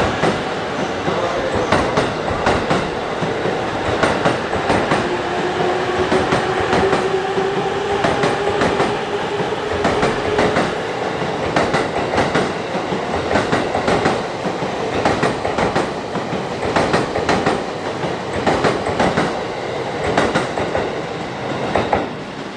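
Electric train moving along the platform, wheels clacking repeatedly over rail joints and points, with a motor whine that slowly rises in pitch as it gathers speed.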